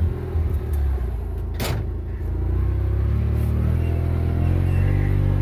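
Kubota engine running steadily, its speed stepping up and down a few times, with a short burst of noise about a second and a half in.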